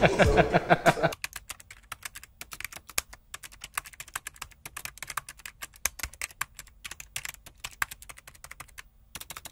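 Speech over music cuts off about a second in. Then comes a typing sound effect: rapid, irregular keyboard key clicks that stop just before the end.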